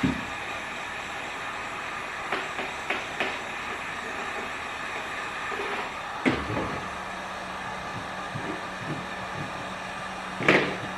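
Heat gun blowing steadily, with a low hum joining about seven seconds in. A few light knocks and a louder knock near the end.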